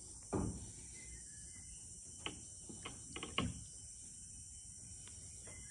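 Feet moving in shallow hot spring water make a few soft sloshes and splashes, the clearest about a third of a second in and a cluster around three seconds in. A steady high insect chorus runs underneath.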